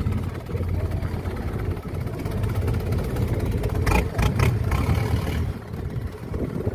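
Boat engine running steadily with a low hum, with a quick cluster of knocks about four seconds in.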